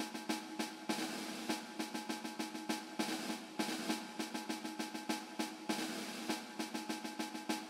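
Background music with a quick, steady drum pattern over a few held notes.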